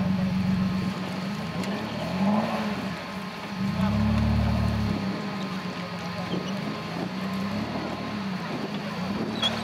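Off-road trial buggy's engine running at a low, steady speed, revving briefly about two seconds in, then pulling harder for about a second around four seconds as it works through the mud.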